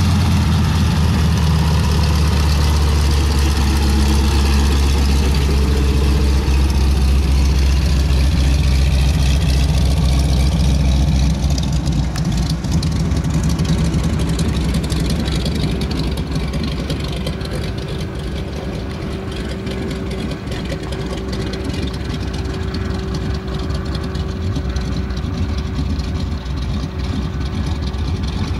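De Havilland DHC-2 Beaver Mk I's Pratt & Whitney R-985 nine-cylinder radial engine running at low taxi power while the plane rolls past. It is a deep, steady engine drone, loud at first, that becomes quieter about twelve seconds in as the plane taxis away.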